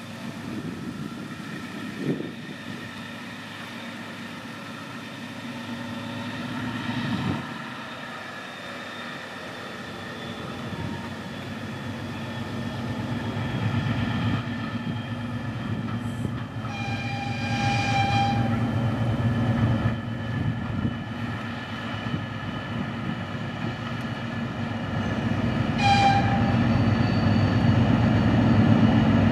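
Soviet-built 3TE10M/2TE10M diesel freight locomotive, with 10D100 two-stroke opposed-piston diesel engines, working hard under load as it hauls a freight train, its engine drone growing louder as it approaches. The locomotive horn sounds one steady note for about two seconds just past the middle, then gives a short toot near the end.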